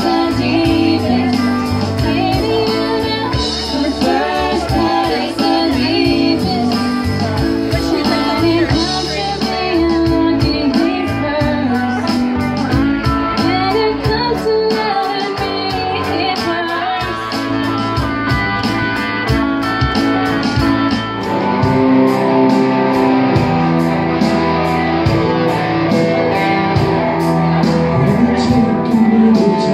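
A band playing a song: singing over guitar. From about ten seconds in, a steady beat runs under it.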